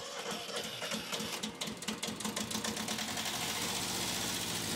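Kubota B6000 tractor's two-cylinder ZL600 diesel being started after a fuel injection timing job: it turns over with a quick, rhythmic chugging, catches about three seconds in and settles into a steady idle.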